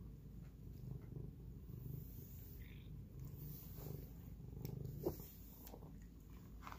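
Domestic cat purring steadily, with a single sharp click about five seconds in.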